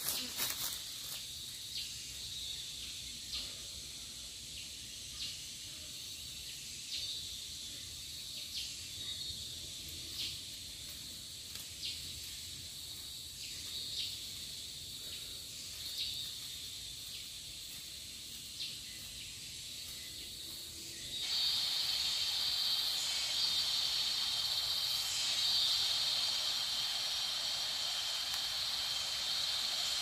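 Forest insects droning steadily at a high pitch, with short clicks about every one to two seconds. About 21 seconds in, the sound cuts to a louder, steady rush of water with the insects still droning above it.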